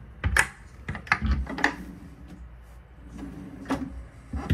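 Low cabinet drawers being pulled open and pushed shut by hand: a series of about six clicks and knocks, the loudest about half a second in and again near the end.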